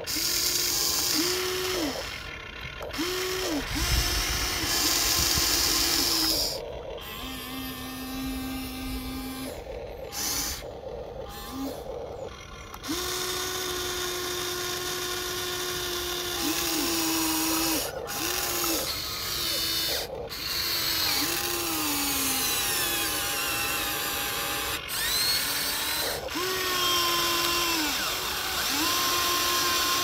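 Huina remote-control excavator's electric motors and gearboxes whirring as the arm swings and the bucket digs soil, in repeated runs from about a second to several seconds long, each starting and stopping with a short rise and fall in pitch.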